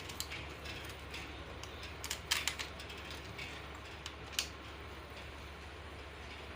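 Metal clicks and clinks of hand work on a motorcycle engine's timing parts, a cluster of sharp clicks about two seconds in and two more a little after four seconds, over a low steady hum.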